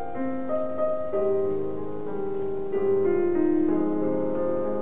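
Slow piano music: single notes and chords struck every half second or so and left to ring over one another.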